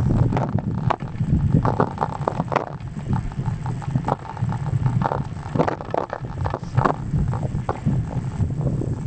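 Strong gale wind buffeting an action camera's microphone on a moving bicycle: a heavy, gusting low rumble, with frequent short knocks and rattles throughout.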